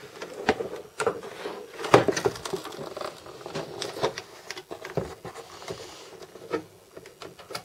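A rigid plastic box lid being handled and lifted off its case: scattered clicks, knocks and rubbing of hard plastic, with the loudest knock about two seconds in.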